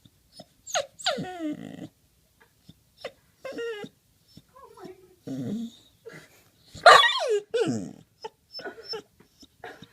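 Black Lab–Australian Shepherd mix puppy whining in a string of separate high cries, some falling in pitch and some wavering, the loudest a little under seven seconds in: excited whining at a neighbour dog she doesn't bark at.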